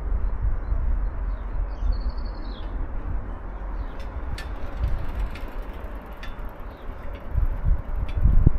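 Outdoor city ambience: a steady low rumble that swells louder near the end, with a bird's short warbling call about two seconds in and a few faint clicks.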